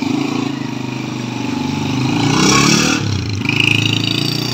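Small motorcycle engine running as the bike pulls away, its pitch rising and falling in the middle.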